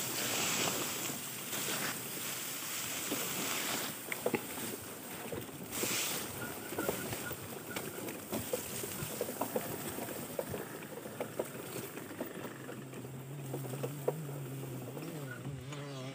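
Wind buffeting the microphone and tall grass swishing and brushing against the camera as it pushes along a grassy trail, with scattered light clicks and knocks. About three-quarters of the way through a steady low hum sets in.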